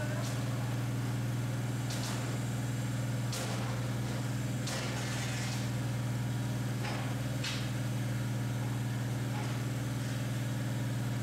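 Hydraulic guillotine plate shear idling, its pump motor giving a steady low hum. Several short clanks and scrapes come from the steel plate being slid into place under the hold-down feet.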